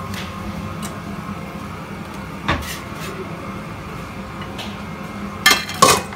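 Round metal künefe pans clanking against the gas burner grate and counter as a cooked künefe is turned out: one knock about two and a half seconds in, then two louder clatters close together near the end, over a steady kitchen hum.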